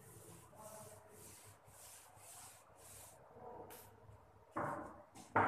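Chalkboard eraser wiping a chalkboard clean: a rhythmic swishing of quick back-and-forth strokes, about two or three a second. Near the end come two brief louder sounds.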